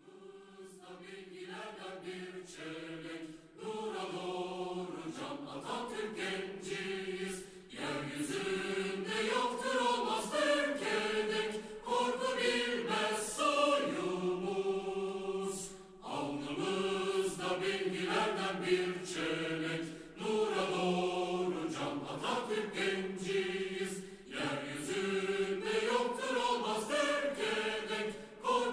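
A choir singing in long held phrases with short breaks between them, fading in over the first few seconds.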